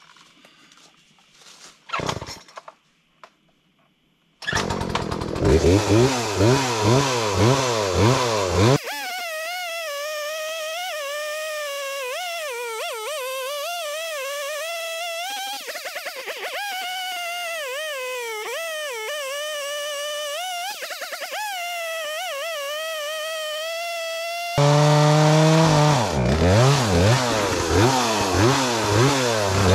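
Gas chainsaw bucking a fallen tree trunk. After a quiet start with one short knock, the saw starts about four seconds in and runs loud, its pitch rising and falling as it revs and bites into the wood. For a long stretch in the middle it sounds higher and thinner, then returns to the fuller sound near the end.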